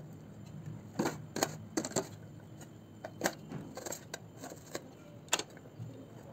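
Kitchen knife chopping onion on a glass pot lid, the blade striking the glass in irregular sharp clicks, about nine of them.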